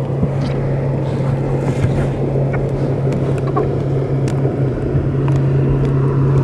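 Boat's outboard motor idling with a steady low hum, with a few sharp clicks and knocks from the net and fish being handled on the riveted metal deck.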